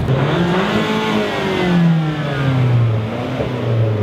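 A car engine revving as the car drives past. Its pitch climbs in the first second, then falls steadily over the next two seconds.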